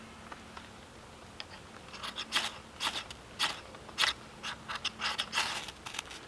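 Short, sharp scraping strokes, about two a second and starting about two seconds in, from working a lump of fatwood to light a campfire.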